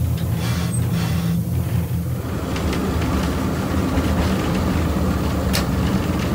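A small diesel locomotive's engine running steadily, heard from inside its cab as it moves along the line, with a deep, even drone.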